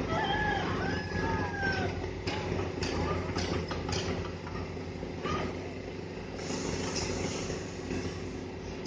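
Truck crane's diesel engine running steadily, with a few sharp knocks about two to four seconds in.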